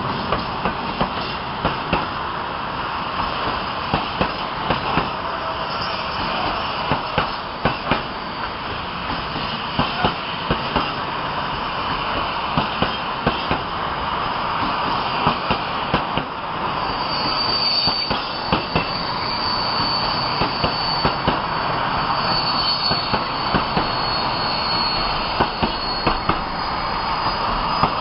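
Freight wagons running past on the track: a steady noise with the wheels clicking over rail joints in regular pairs. A thin, high wheel squeal sets in a little past the middle.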